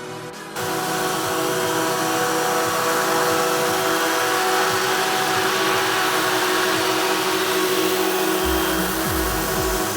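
Craftsman 18-inch electric chainsaw switching on about half a second in and running steadily at full speed.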